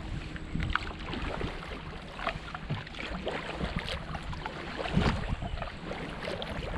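Kayak paddling: the blades of a Braca VII Max paddle dipping and pulling through calm river water on alternate sides, with small splashes and drips. Wind rumbles on the microphone, strongest about five seconds in.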